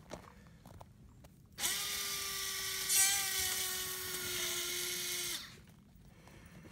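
CDL SpinSeal tool's motor spinning a fitting into a plastic maple-tubing mainline to weld it in place. It is a steady whine with a hiss, starting about a second and a half in, dropping slightly in pitch, and cutting off suddenly after about four seconds.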